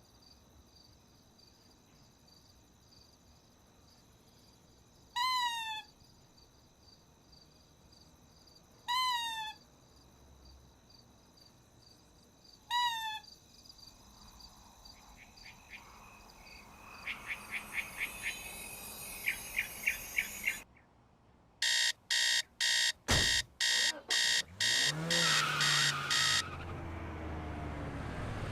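Three short chirps about four seconds apart, then an electronic alarm clock beeping in rapid pulses. The beeping starts faint, grows, and turns loud and insistent for several seconds before stopping.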